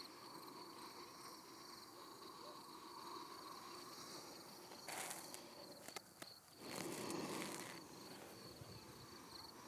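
Faint, steady insect chirping in an even pulsing rhythm, with two short rustling noises about five and seven seconds in.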